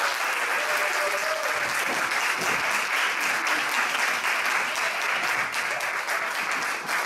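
An audience applauding: many hands clapping together, dense and steady throughout.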